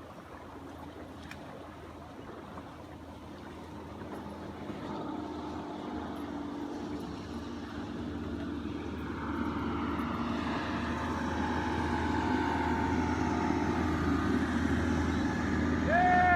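Motorboat engine running on the lake, growing steadily louder as the boat approaches. A short high call with an arching pitch sounds at the very end.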